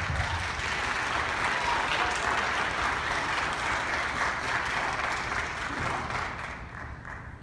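Audience applauding, the clapping dying away in the last second or so.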